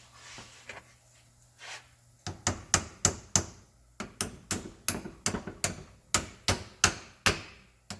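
Hammer tapping metal brake parts into place on a disc brake caliper: a few light ticks, then from about two seconds in a steady run of sharp strikes, about three a second.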